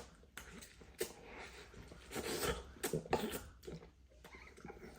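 A person slurping and chewing a mouthful of hot spicy instant noodles, with short wet clicks and mouth noises in bursts.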